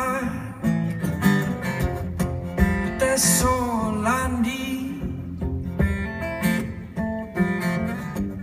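Live solo acoustic guitar strummed steadily, with a man singing held notes over it at times.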